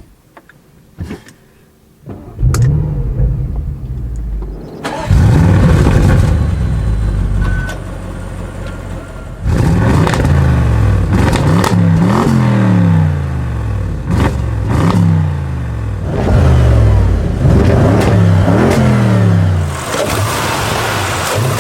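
2014 Audi RS6 Avant's twin-turbo 4.0 V8: a few clicks, then the engine starts with a loud flare about two seconds in and runs on. From about halfway it climbs in revs and drops back again five or so times, and rushing tyre and wind noise takes over near the end.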